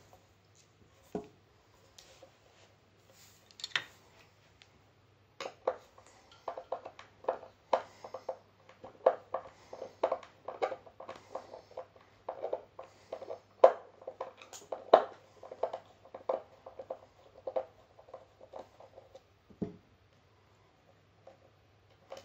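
Irregular small knocks and clicks, two or three a second for about fourteen seconds, from hands working at a turntable plinth stood on its edge and pulling the tonearm cable out through it.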